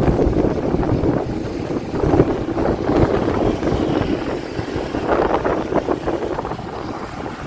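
Strong wind buffeting the microphone of a rider on a moving motorbike, a gusty rumble over the steady motorbike and road noise.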